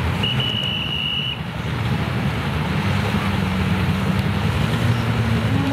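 Personal watercraft (jet ski) engines running at idle close by, a steady low rumble, with wind on the microphone. A high steady tone sounds for about a second near the start.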